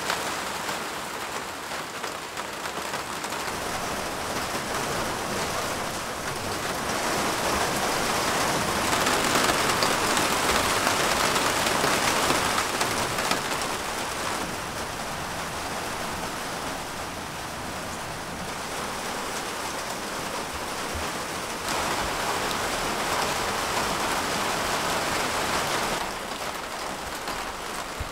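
Rain falling on the polycarbonate panels of a greenhouse, heard from inside: a steady hiss of drops that grows heavier for a few seconds about a third of the way in.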